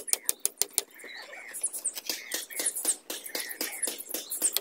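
A hammer tapping a nail into bamboo, quick light blows about five a second, which stop about a second in; then a few scattered knocks of bamboo poles being shifted and handled, with some brief high chirps.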